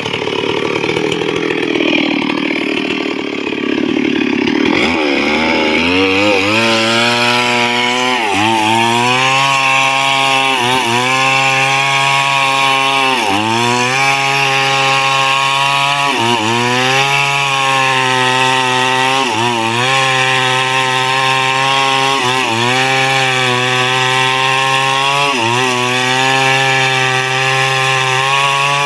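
Stihl MS 382 single-cylinder two-stroke chainsaw: low and uneven for the first few seconds, then revved high from about five seconds in, cutting into a log. Its pitch drops sharply and recovers every two to three seconds.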